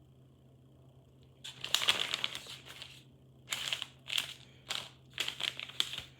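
Packaging crinkling as bullion coins are unwrapped and handled: a long rustle about a second and a half in, then a string of short crinkles.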